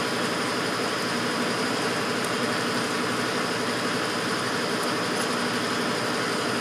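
VincentCorp CP6 screw press running steadily while pressing ethanol-soaked hemp: a constant drive hum with a faint high whine, over ethanol streaming from the slotted screen into the trough.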